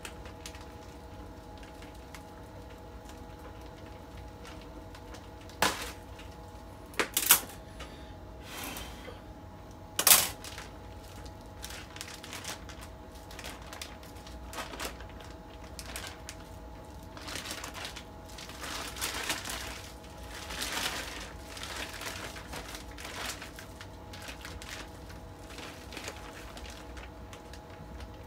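Plastic bag crinkling and wet cabbage kimchi squishing as gloved hands lift it from the bag and press it into a plastic storage container, with a few sharp clacks about six, seven and ten seconds in, over a faint steady hum.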